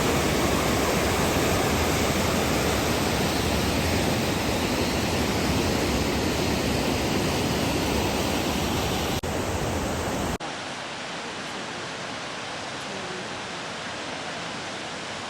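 Creek water rushing steadily. Just after a brief dropout, about ten seconds in, it drops suddenly to a quieter rush.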